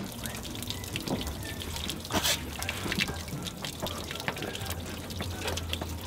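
Water pouring and dripping from a vehicle's underside, splattering onto wet pavement and a person's face in many small splashes, with a louder splash about two seconds in.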